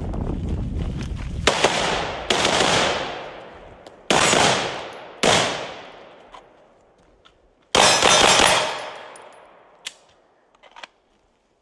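A string of gunshots fired at an uneven pace: a quick double about a second and a half in, single shots after it, and a fast pair near the end. Each crack trails off in a long rolling echo.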